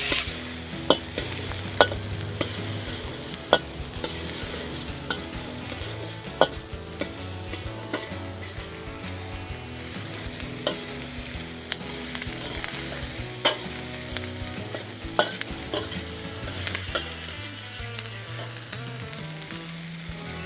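Vegetables sizzling in a very hot wok while a metal spatula stirs and tosses them, with sharp clinks and scrapes of the spatula against the wok every second or two.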